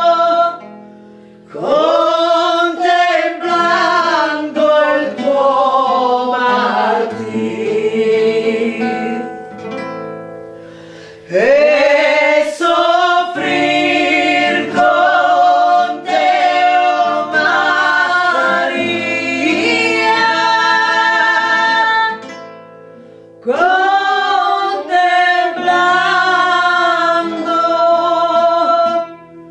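A devotional song: voices singing in phrases over a plucked guitar accompaniment, with short pauses between phrases.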